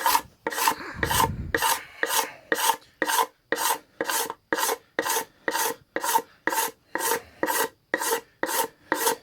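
A knife blade drawn back across a wooden cutting board, scraping the surface in short, even strokes, about two a second. It is the hand-scraping stage of refinishing the board, each pass leaving the wood a little smoother.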